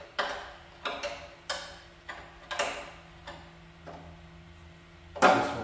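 Ratchet wrench clicking in short strokes, about one stroke every two-thirds of a second, as it works the rear drain plug of a dual-sump oil pan; a louder metal clank near the end.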